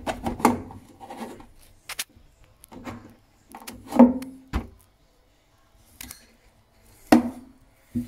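Flue manifold of an Ideal Logic gas boiler being worked loose and pulled out by hand: a string of plastic knocks and clicks with short scrapes between them, the loudest knock about four seconds in and another near the end.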